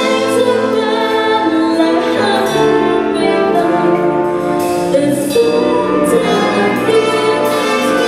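A female vocalist singing with a full wind band (concert band) of woodwinds and brass accompanying her, in continuous sustained music.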